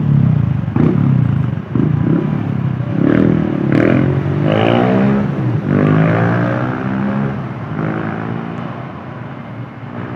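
Bus driving past with its engine revving up and down as it accelerates, loudest for the first seven seconds and then fading.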